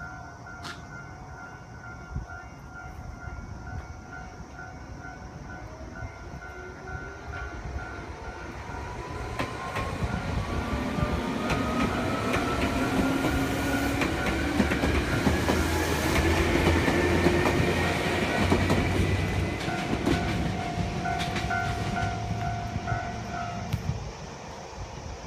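Nagano Electric Railway 8500-series electric train (ex-Tokyu stainless commuter car 8516) passing close by. Its traction motors whine in a steadily rising pitch as it picks up speed, with wheel clicks over the rail joints. A level-crossing warning bell rings steadily at the start and again near the end.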